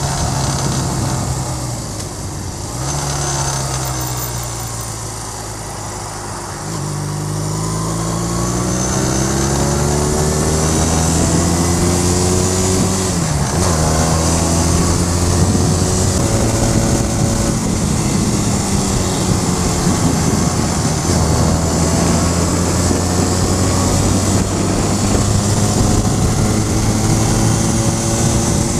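Cruiser motorcycle engine running under way, heard from the rider's seat with wind rushing over the microphone. The engine note climbs steadily as the bike accelerates, dips briefly about halfway through, then holds steady at cruising speed.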